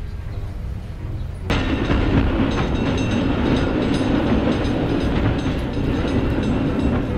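Light rail tram passing close by on the street, its rolling rail noise coming in suddenly about a second and a half in over a low rumble.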